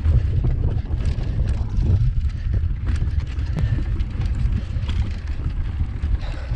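Wind buffeting a bicycle-mounted camera's microphone, with the bike rattling and clicking as it rides over stone cobbles.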